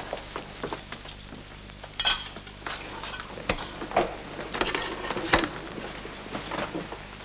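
Household clatter: scattered knocks and clinks of crockery and a spoon against a bowl as a meal is set on a table, mixed with footsteps. A few sharper knocks stand out among the lighter clicks.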